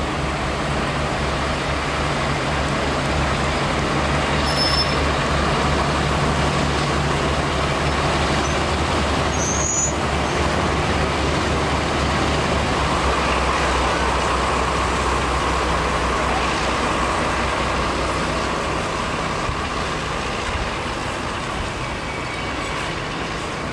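The twin Maybach V12 engines of a Class 52 'Western' diesel-hydraulic locomotive running steadily at close range, with a deep, even engine note that grows a little quieter near the end.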